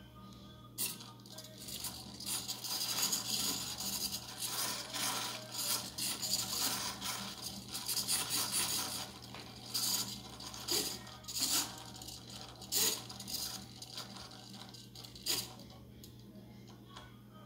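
Small hobby servo motors of a robotic arm whirring and buzzing in uneven bursts as they follow the tilting of a wireless gyroscope controller. The bursts start about a second in and stop near the end. A steady low hum sits underneath.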